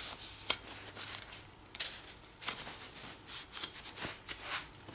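Light handling noise: a hand wiping excess wood glue off a board, with soft rustles and a few small knocks as the board is moved.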